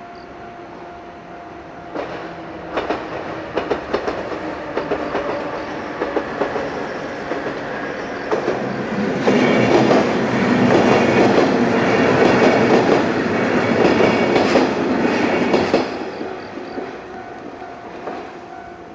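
A JR 103 series four-car electric train passing a level crossing: its wheels click over the rail joints from about two seconds in, build to the loudest passage from about nine to sixteen seconds in, then fade. The crossing's warning bell rings steadily at the start and again as the train moves away.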